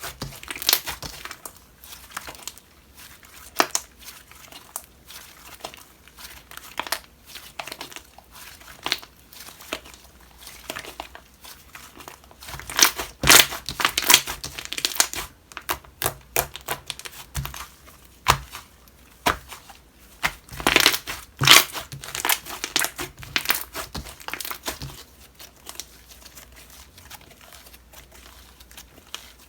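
Homemade slime being played with by hand, giving irregular crackling clicks and pops that come in denser clusters about 13 and 21 seconds in.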